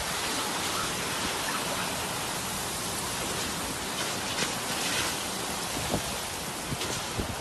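Heavy rain pouring down onto a wet street, a steady even hiss, with a few brief sharp ticks in the second half.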